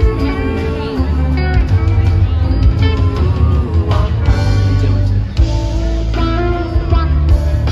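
Live rock band playing, with a guitar line carried over bass and drums.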